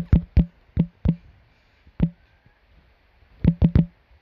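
Taps typing a word on a smartphone's on-screen keyboard: a quick run of short knocks in the first second, a single one about two seconds in, and three rapid taps near the end.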